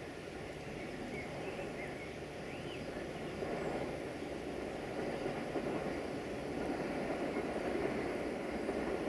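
An approaching train's running noise, a rumbling rush that grows gradually louder as it nears. A few short bird chirps sound about one to three seconds in.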